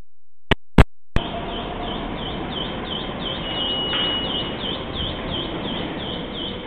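Three sharp clicks about a second in, as the recording starts, then the steady hum and hiss of an underground subway station platform.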